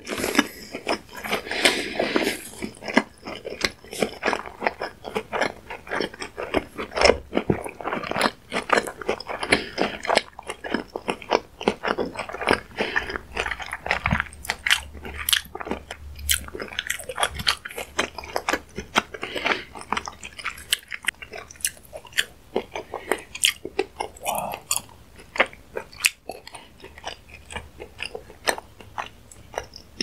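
Close-miked chewing of a mouthful of small fish roe: a steady run of sharp little pops and crunches as the eggs burst between the teeth, thinning out near the end.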